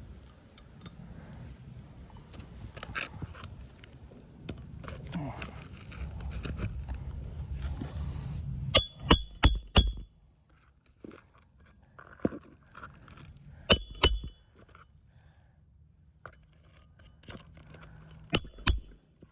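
Wind buffeting the microphone for the first half, then sharp metallic clinks with a brief ring, in three quick runs of two to four strikes.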